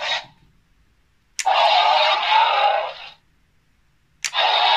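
Electronic dinosaur roar played through the small speaker of a Jurassic World Allosaurus action figure, each roar set off by a button click. One roar lasts about a second and a half, and a second click and roar start near the end.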